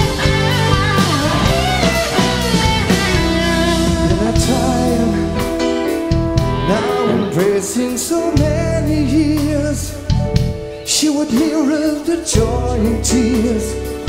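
Progressive rock band playing live: a male lead vocal sings over held bass notes, electric guitar, keyboards and drums with cymbals.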